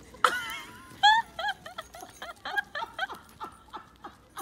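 A dachshund gives a string of short high-pitched whimpers, a few a second, fading out after about three seconds, over light scuffing steps on a gravel path.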